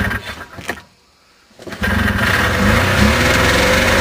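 Ski-Doo Everest 440 snowmobile's two-stroke engine being pull-started cold after priming. One pull turns it over in the first second, then it catches a bit under two seconds in and keeps running loudly and steadily.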